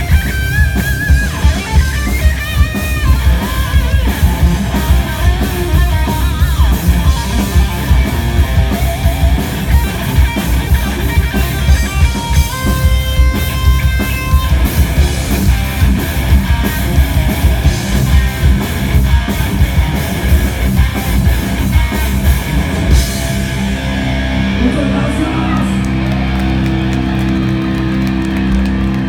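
Live heavy metal band playing loud, with distorted electric guitars over fast drumming, recorded through a smartphone's microphone. About three-quarters of the way through, the drums stop and held guitar chords ring on.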